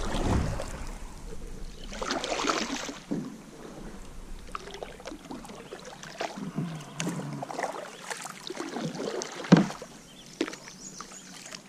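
Kayak paddle strokes in shallow, weedy water: a swish and splash every couple of seconds, with dripping between strokes. There is one sharp knock near the end.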